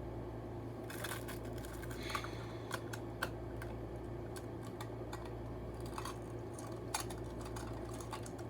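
Scattered light clicks and taps of a hard plastic cube-shaped candy container being handled.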